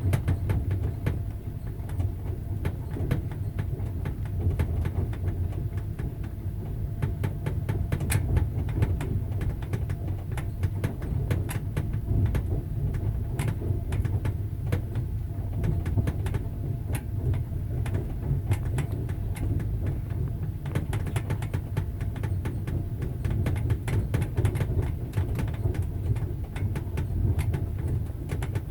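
Passenger train running on the rails, a steady low rumble with the clatter of its wheels: many short sharp clicks and knocks throughout.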